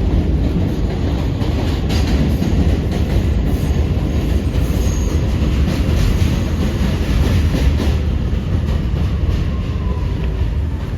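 Inside a Kawasaki R211A subway car in motion: a steady rumble of steel wheels on rail with scattered clicks from the track. A faint falling whine comes in near the end.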